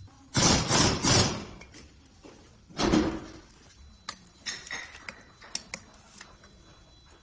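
Steel bolts and metal parts clattering while the outer chamber is bolted onto a metal air-operated diaphragm pump: two loud clattering bursts in the first three seconds, then lighter clicks and taps as a bolt is driven in with a hand tool.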